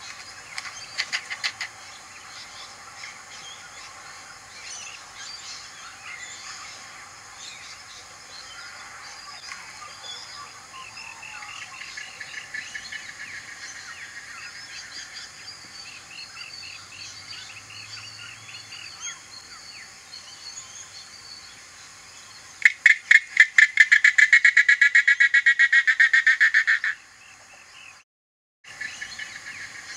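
European shags calling: a fast, rattling series of clicks, with short bursts near the start and one loud rattle of about four seconds about two-thirds through. Many small chirps run underneath.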